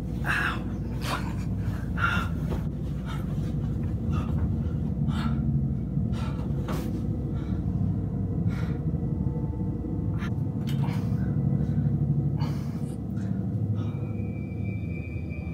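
A man breathing hard in short, heavy pants, about one breath a second, over a low steady rumble.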